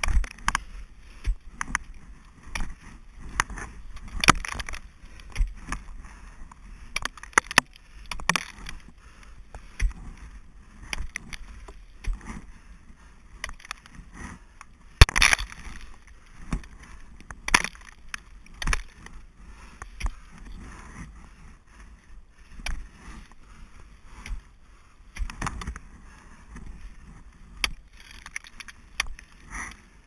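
Ice axe picks and crampon points striking and kicking into waterfall ice, a string of irregular sharp thuds, with the loudest blow about halfway through.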